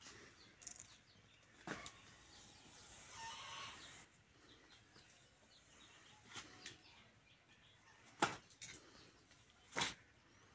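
A handful of short, sharp taps, a thin stick knocking and scraping on a concrete floor while a snake is steered with it, over a quiet background. A soft rustle is heard around three seconds in.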